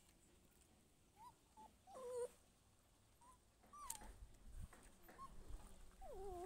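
Puppy whimpering: a series of short, faint whines that rise and fall, the longest about two seconds in and near the end. A low rumble underlies the second half.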